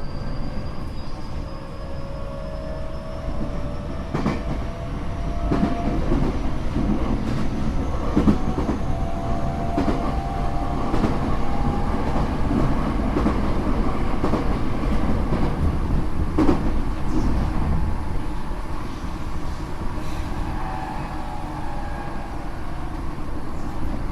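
Tokyo Metro 8000 series train with a Mitsubishi IGBT inverter drive, running and heard from inside the car. Faint motor and inverter tones climb slowly in pitch over the first several seconds, over a steady rumble with repeated rail-joint clicks, and the sound grows louder about four seconds in. The car is known for abnormal running noise, its drive sound rough and muddy across most of the speed range.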